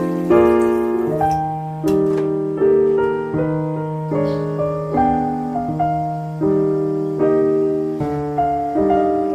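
Background piano music: calm chords struck about every three-quarters of a second over held bass notes, each chord fading before the next.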